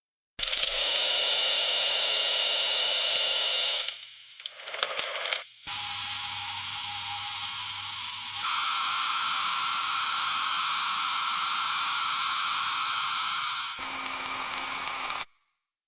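Electric coffee grinder running in bursts. A loud run of about three seconds winds down with rattling. A longer run follows whose tone shifts and grows louder about a third of the way through, then a short final burst that cuts off just before the end.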